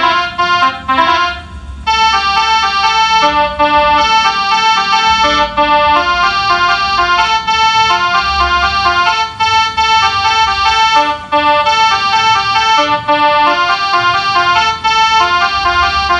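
A melodica (pianika) played in short held notes, often two at a time, imitating the multi-tone melody of a Basuri bus horn, with a brief pause about two seconds in.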